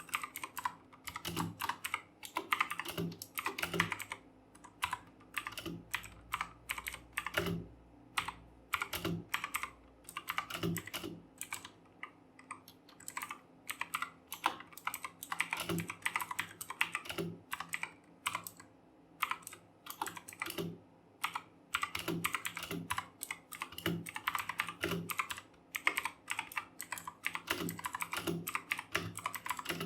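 Fast typing on a RedGear Chameleon mechanical keyboard with Kailh Blue clicky switches: a dense, uneven stream of keystroke clicks, thinning out for a moment now and then.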